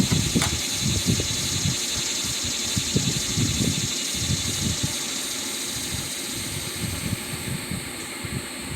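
Honeybees buzzing around an opened hive during an inspection, a steady drone under a high-pitched hiss, with irregular low thumps and rumbles from handling or wind on the microphone.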